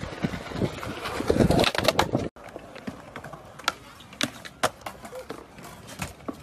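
Skateboard on concrete: wheels rolling with a louder burst of clatter about a second and a half in. The sound cuts out briefly, then a few sharp separate clacks follow as a board is popped and landed.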